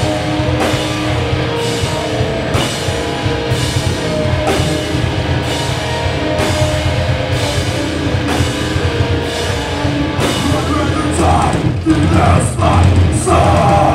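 Live heavy rock band playing: distorted electric guitars and bass hold low sustained notes under heavy drum hits about once a second. Vocals come in near the end.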